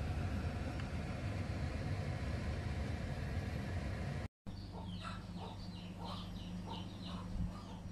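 A steady low rumbling noise that stops abruptly about four seconds in. It is followed by birds chirping: many short calls repeated several times a second, over a steady low hum.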